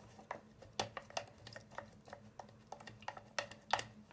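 Light, irregular clicks and knocks of kitchen utensils against a hand lemon squeezer and dishware, about three a second.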